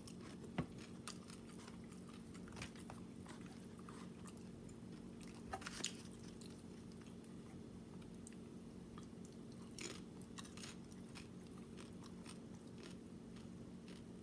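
Close-miked chewing and biting into tacos: faint, irregular crunches and wet mouth sounds, with a few sharper crunches about half a second in and near the middle.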